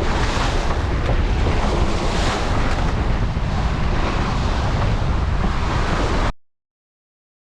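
Strong wind buffeting the microphone with the rush of the sea, a heavy rumbling noise that cuts off suddenly a little over six seconds in.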